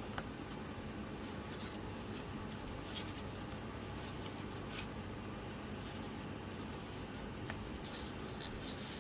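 Soft dry rubbing and light scratchy ticks of hand-wiping dust off a laptop's cooling fan parts, over a steady faint hiss.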